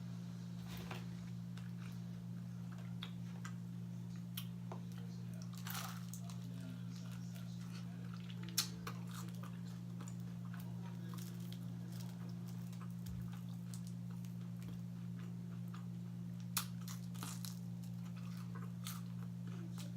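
Close-up biting and chewing of crunchy fried food, with irregular crisp crunches and two louder sharp snaps, one near the middle and one toward the end. A steady low hum runs underneath.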